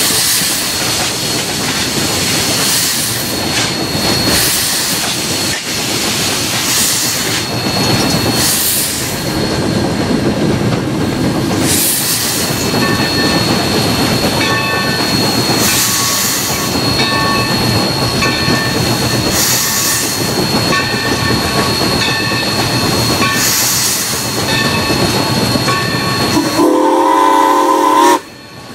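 Mikado steam locomotive #3025 running, heard from its cab: a steady noisy din of the moving locomotive with a thin high whine running through it. Near the end its whistle blows, a chord of several notes that is the loudest sound, breaking off abruptly for a moment just before the end.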